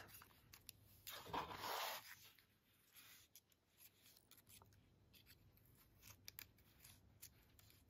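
Near silence with faint handling of paper pieces: a soft rustle about a second in, then scattered light clicks and taps.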